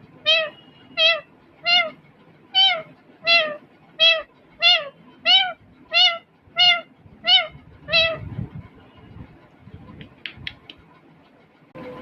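Indian ringneck parrot calling over and over, about a dozen short, rising-then-falling mewing calls in a steady rhythm of roughly one and a half a second, then stopping, with a few brief high chirps a couple of seconds later.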